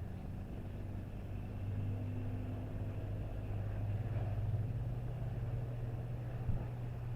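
A steady low engine or motor hum, stepping up slightly in pitch about a second and a half in and again about four seconds in.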